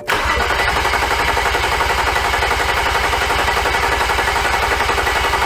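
BMW N55 turbocharged straight-six being cranked over on its starter with the injectors unplugged, so it turns but does not fire: a priming crank to build oil pressure. The cranking starts suddenly and goes on as a fast, even pulsing.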